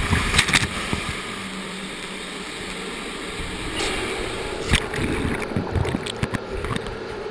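A lifeboat capsizing in a training pool: a loud splash of water as it goes over right at the start, then steady churning and sloshing of water, with a few knocks.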